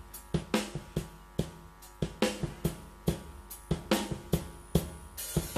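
Live dangdut band playing an instrumental passage: a drum kit keeps a steady beat of kick, snare and cymbal strokes, about two and a half a second, over sustained low notes.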